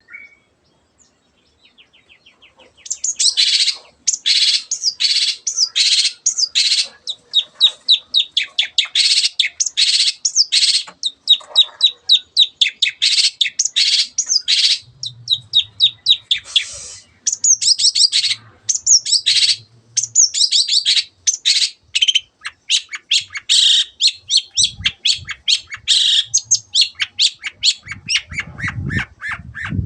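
Long-tailed shrike (cendet) singing hard: a fast, unbroken stream of sharp, varied high chattering notes that starts about three seconds in. A low rumble joins in the last few seconds.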